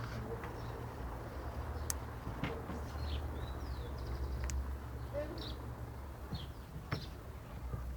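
Black-backed grosbeak giving a few faint, short chirps and notes at scattered moments between song phrases, over a low steady hum.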